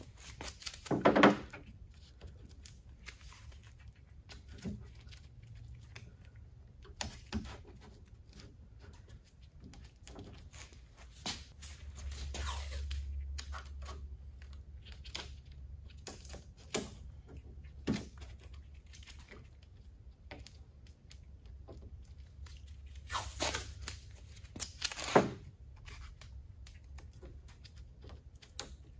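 Blue painter's tape pulled off the roll and torn into strips, several sharp rips among quieter rustling as the tape is pressed onto a rubber trunk weatherstrip seal. The loudest rips come about a second in and twice near the end.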